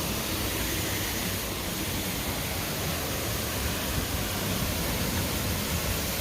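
Steady rush of falling water turning a water wheel.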